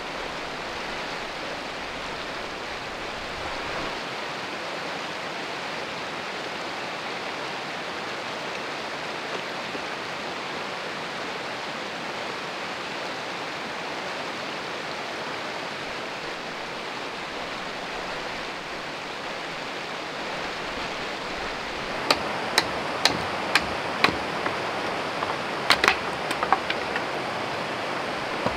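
Steady rush of river water spilling over a rock ledge. About 22 seconds in, a run of sharp knocks begins, roughly ten in six seconds: a hatchet striking a dead stick.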